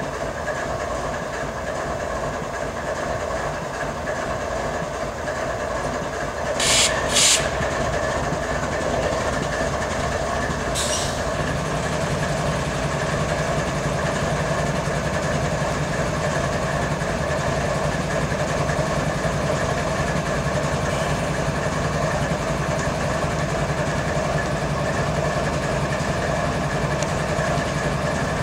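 GE ES44 locomotive's GEVO-12 diesel prime mover idling steadily. Two short, sharp air hisses come about seven seconds in and a weaker one near eleven seconds. From about eleven seconds the air compressor is running, adding a steady low throbbing over the idle.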